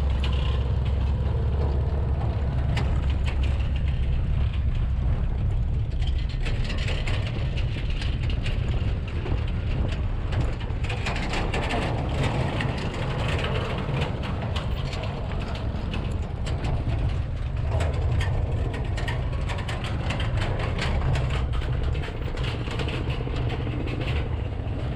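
Motorbike running across a suspension footbridge's slatted deck, with a steady low rumble and a continuous clatter and rattle of the deck under the wheels.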